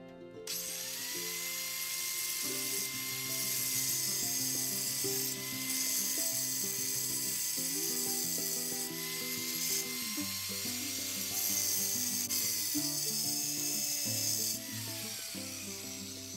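Background music, with a steady high whine that rises in the first second and falls away near the end.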